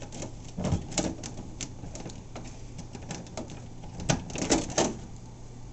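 Irregular small clicks and taps as fingers handle the wiring and parts inside the plastic hull of an NQD PX-16 RC catamaran, over a steady low hum.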